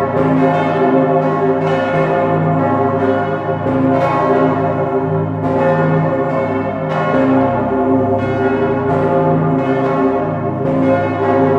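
Full peal of St. Stephen's Cathedral's bells, including the Pummerin, heard up close inside the bell chamber. Several large swinging bronze bells strike over one another about every second or two, their tones ringing on into a dense, unbroken wash.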